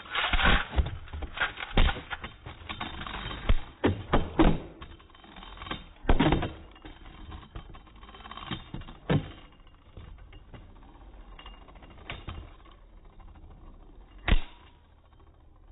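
Beyblade spinning tops clacking against each other and the plastic stadium: irregular sharp knocks, thick and fast for the first nine seconds, then sparse, with one lone loud knock near the end.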